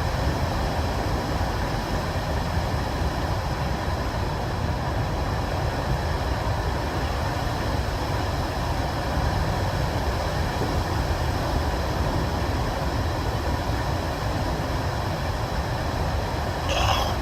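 Steady roar of storm wind and surging floodwater, with the wind rumbling heavily on the microphone. A brief higher-pitched sound cuts in near the end.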